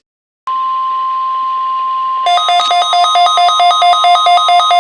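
Weekly test of a National Weather Service emergency warning alarm played over a weather radio. A loud steady alarm tone begins half a second in, then about two seconds later switches to a rapid even alternation between two pitches, high-low.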